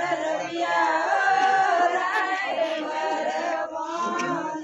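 Several voices singing a Marwari wedding folk song together, in long held notes.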